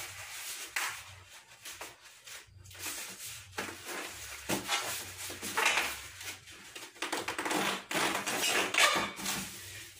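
A long latex modelling balloon rubbing and squeaking in the hands as it is twisted and coiled into a spiral shape. The noises come and go irregularly and are louder in the second half.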